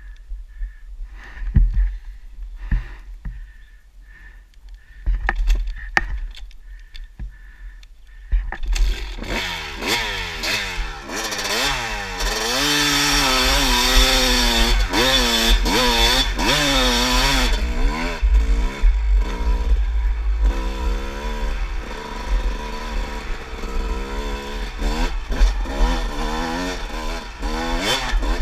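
A few scattered knocks and clunks, then about eight seconds in a Kawasaki dirt bike engine starts and runs under the rider, revving up and down again and again as it rides off.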